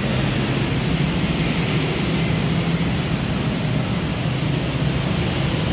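Steady outdoor background noise: an even rushing hiss with a low hum underneath.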